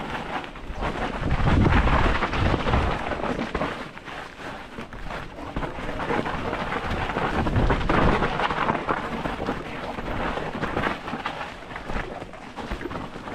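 Wind buffeting the microphone: a gusting, rumbling rush of noise that swells and fades, strongest about two seconds in and again about eight seconds in.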